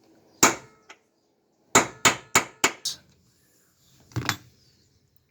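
Hammer strikes on metal as the shear bolts are tapped loose: a single blow, then a quick run of five about a third of a second apart, and a further rougher knock near the end.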